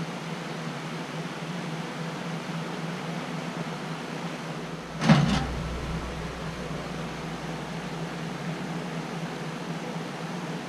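A single sharp metal clank about halfway through, with a smaller one just after, as the welded steel test plate in its locking pliers is set down on the steel welding table. A steady low hum runs underneath.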